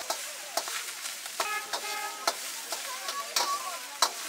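Eggs sizzling steadily in a hot wok while a metal wok ladle scrapes and knocks against the pan every second or so as they are stir-fried. Two short beeps sound about a second and a half in.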